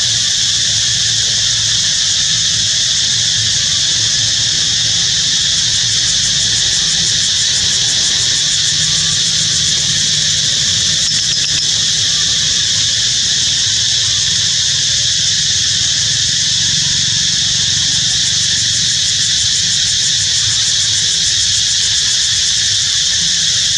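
A chorus of cicadas, a steady high-pitched drone with a fast pulse to it that does not change.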